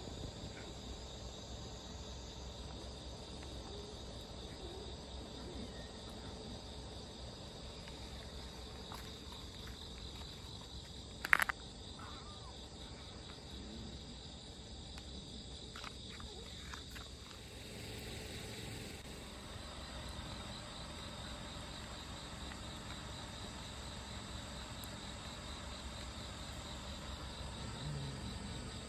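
Steady, high-pitched insect trilling, which turns into an even, pulsing chirp about two-thirds of the way through. A single sharp tap about a third of the way in is the loudest sound.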